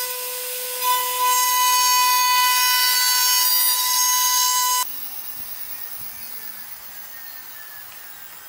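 CNC router spindle whining steadily as its small end mill cuts a frame out of a wood board, with a cutting hiss over the whine. It cuts off abruptly a little under five seconds in, leaving a much quieter hiss.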